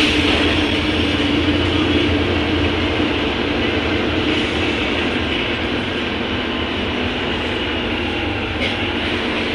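A moving city bus heard from inside its cabin: steady engine and road noise, a continuous rumble with a faint hum that fades a few seconds in.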